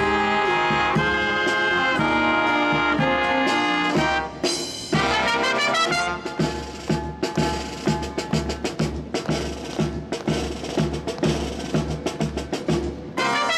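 Outdoor brass band of trumpets and trombones with drums playing. Held chords for about four seconds, a brief break, then a livelier passage of short, punchy notes over a steady low beat.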